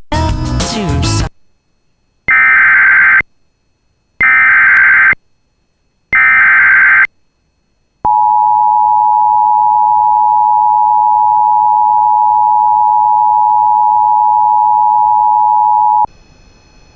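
Emergency Alert System tones: three SAME header data bursts, about a second each and two seconds apart, followed by the steady two-tone EAS attention signal for about eight seconds, which cuts off abruptly. A brief loud burst of other sound comes right at the start.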